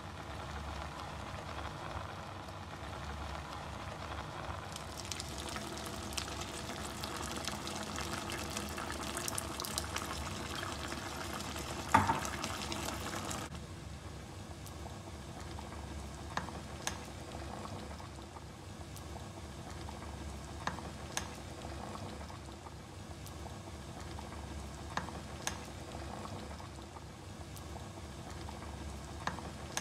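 Beef, tomato and onion stew bubbling in a pot, with scattered soft pops. In the first half a busier crackling sizzle runs over it, broken by one sharp knock, then it drops suddenly to the quieter bubbling.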